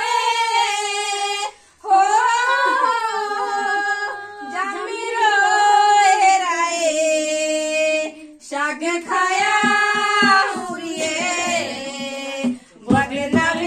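A woman singing a Pahadi folk song unaccompanied, in phrases with long held, ornamented notes and short pauses between them. Right at the end a low rhythmic beat starts under her voice.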